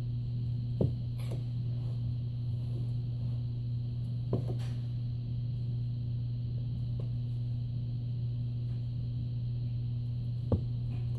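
A steady low hum, with three short knocks spread through it.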